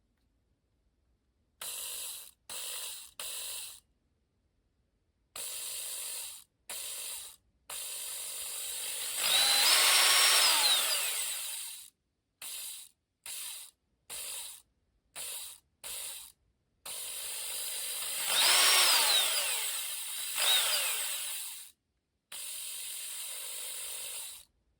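Black+Decker KR112 drill driver running in a series of short trigger bursts. In two longer runs the motor speeds up, holds and winds back down, louder than the short bursts.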